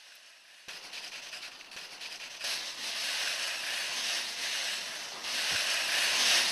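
Hundreds of small wooden tiles on a motorized wooden-mirror display tilting together on their servo motors, giving a dense rustling clatter. It starts under a second in, swells about two and a half seconds in, and swells again near the end.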